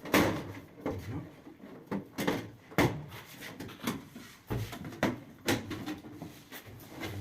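Irregular knocks and clunks, about a dozen spread over several seconds, from hands-on work with tools on a marble kitchen countertop.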